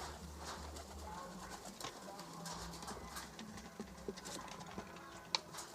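Domestic pigeons cooing low in the loft, with scattered light clicks and a single sharp tap about five seconds in.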